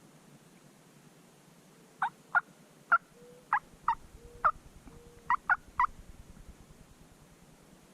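Wild turkey calling: a series of about ten short, sharp notes over about four seconds, with a low rapid pulsing underneath in the middle of the series.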